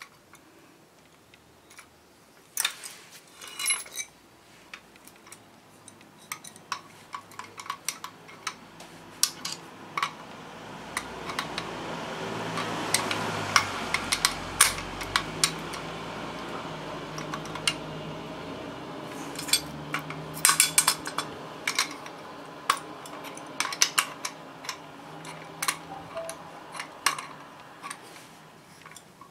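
Small metal parts clicking and clinking as a metal drill stand's feed handle is fitted and fastened by hand, with bolts and washers knocking together. A low hum swells and fades in the middle.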